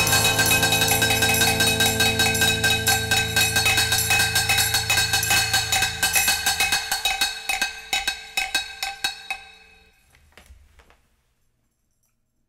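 Closing bars of a home-made rock cover: a Telecaster electric guitar chord rings and fades while rapid clicky percussion taps on kitchen implements continue, thin out and die away, everything gone a little before the end.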